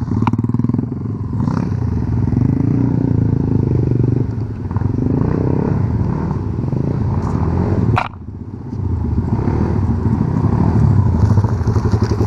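Off-road vehicle engine running and revving as it rides, with the revs falling and rising. About eight seconds in it drops off with a sharp click, then picks up again.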